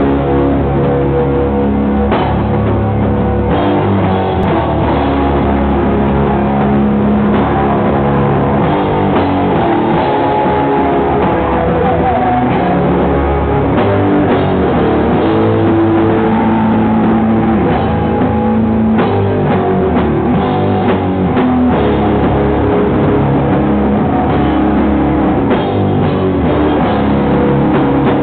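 A rock band playing live and loud, with guitar and drum kit running continuously.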